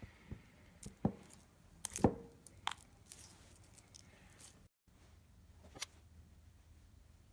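Slime being handled, giving a scattering of short, sharp clicks and taps, about eight in all, the loudest about one and two seconds in. The sound drops out completely for a moment about two-thirds through.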